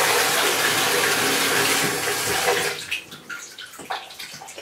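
Tap water running into a bathtub, a steady rush that cuts off suddenly a little over two and a half seconds in, leaving a few light knocks.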